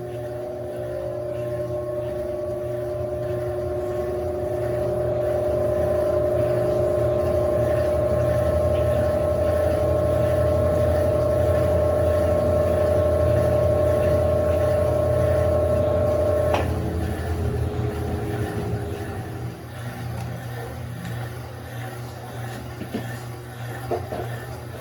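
Electrolux LAC16 top-load washing machine's motor whining as it runs up to speed, then holding a steady pitch. About 16 seconds in the whine cuts off with a click and the lower hum dies away over a few seconds as the machine coasts down.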